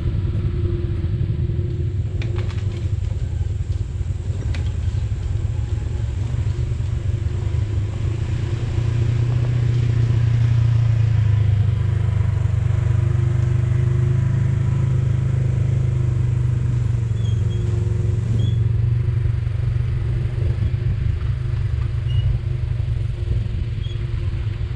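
Off-road vehicle's engine running steadily under way, growing louder about nine seconds in and holding there, with a few light knocks in the first few seconds.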